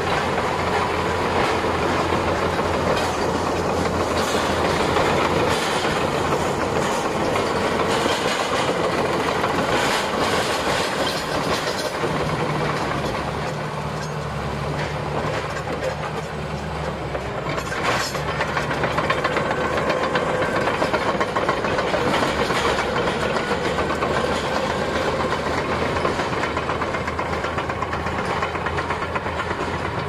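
Shantui SD22 crawler bulldozer's diesel engine running under load as it pushes snow and rubble, with the clatter of its steel tracks and a sharp knock about eighteen seconds in.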